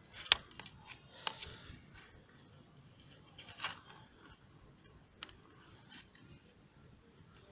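Handling noise: scattered clicks, taps and rustles as hands work a plastic pipe and cable, with a sharp click about a third of a second in.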